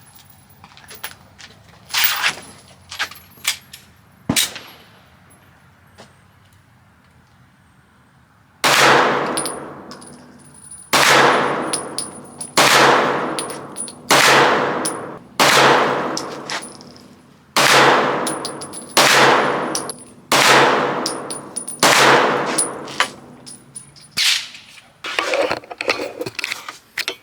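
Firearm shots at a shooting range: a few light knocks first, then from about nine seconds in about ten loud shots fired one every second or two, each with a long echoing tail.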